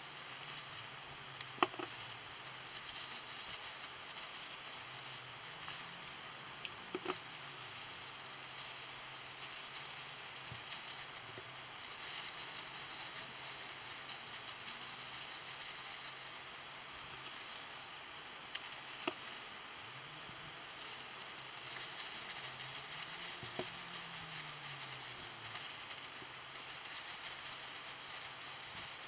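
Thin plastic-gloved hands rubbing hair dye through wet hair: an uneven wet squishing and crinkling that swells and fades as the hands move, with a few light clicks.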